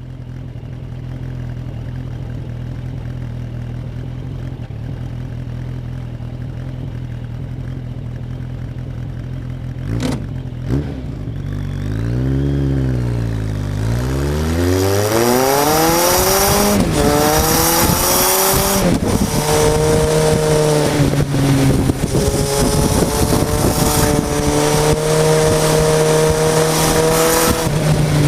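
Suzuki GSF Bandit 1200 S's inline-four engine idling steadily, a sharp click about ten seconds in, then a few throttle blips before it pulls away, its note rising through the gears with two upshifts, then running at a steady speed with wind rush growing over the microphone.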